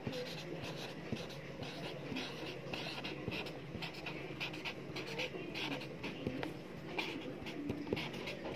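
Marker pen scratching across paper in many short, irregular strokes.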